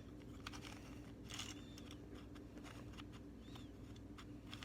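Faint, irregular clicks and rustles of a plastic mirror windmill puzzle cube being turned by hand.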